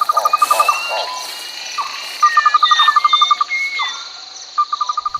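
Jungle ambience: a steady, high-pitched insect drone with birds calling over it. Short whistled notes slide up and down in pitch, and a rapid trill sounds three times: at the start, about two seconds in, and near the end.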